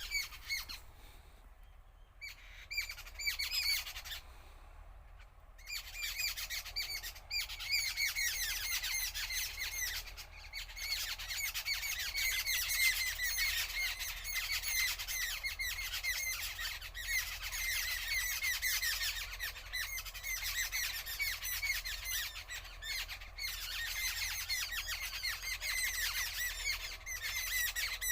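Many birds chirping loudly together, their short calls overlapping in a dense chorus. The chorus thins for a few seconds near the start, then fills back in densely.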